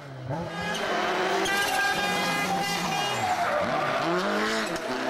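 Rally car engine revving hard as it comes into a hairpin: the revs hold high, then drop and climb again twice through the downshifts and the exit, with the tyres skidding as the car slides round the bend.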